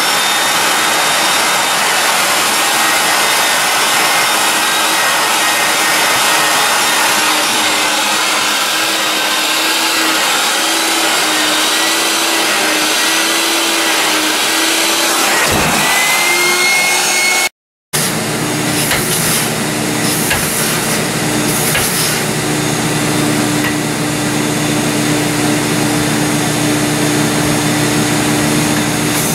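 Drapery cleaning machine's vacuum motor running steadily, its suction hose worked over hanging curtains, with a faint whine that wavers briefly. A short dropout about two thirds of the way through is followed by the same kind of steady machine noise, with light clicks and fabric handling.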